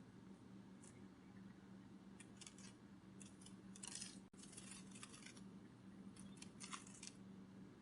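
Faint, papery fluttering of a butterfly wing-flap sound effect, coming in short clusters of quick soft flicks several times, over a steady low hum.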